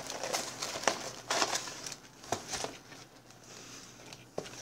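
Paperboard takeout boxes being handled and opened: irregular rustling and crinkling of paper and cardboard, with a sharp snap of the box near the end.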